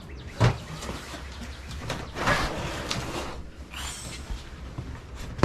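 Things being handled and rummaged through in a storage tote: one sharp knock about half a second in, then a stretch of rustling and shuffling.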